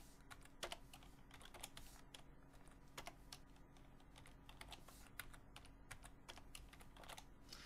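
Faint typing on a computer keyboard: quick, irregular key clicks with short gaps between bursts.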